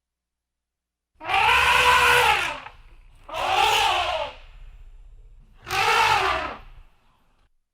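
An animal calling three times, each call about a second long and rising then falling in pitch.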